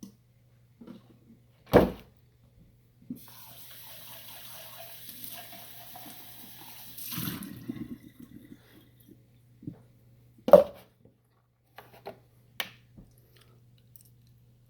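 Kitchen tap running for about four seconds, ending in a short clatter. A loud knock comes before it and another after, with a few lighter clicks near the end.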